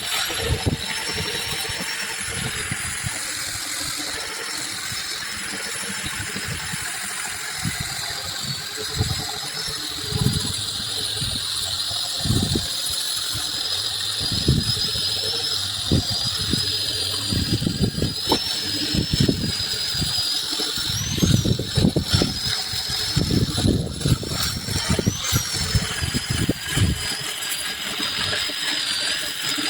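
Electric power tool motor running with a steady high whine that wavers slightly in pitch as the load changes, over irregular low thumps that come more often in the second half.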